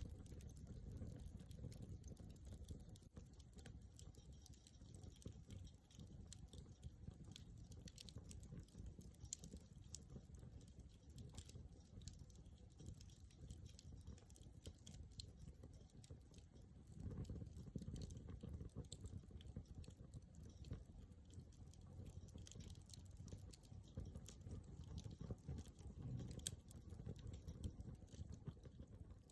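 Wood campfire crackling faintly: many small scattered pops and snaps over a low rumble.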